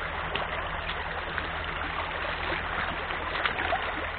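A small rocky stream running fast and shallow over stones: a steady rushing babble of water, with a sharp knock about three and a half seconds in.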